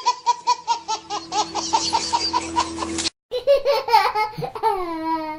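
Edited-in comic laughter sound effect: rapid high-pitched laughing pulses, about six a second, over a steady tone, cut off sharply about three seconds in, followed by a second laugh whose pitch slides down.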